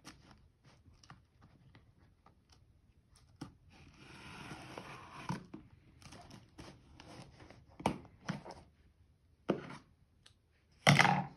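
Scissors cutting the packing tape on a cardboard box: small clicks and scrapes, with a longer scraping tear about four seconds in. The cardboard is handled throughout, with a louder knock near the end.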